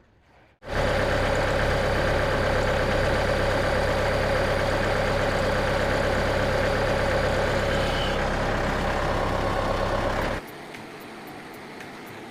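Frontier OS27 portable bandsaw mill running, its engine and band blade working through a wide maple log. The loud running sound starts suddenly about a second in and drops abruptly to a much quieter steady run near the end.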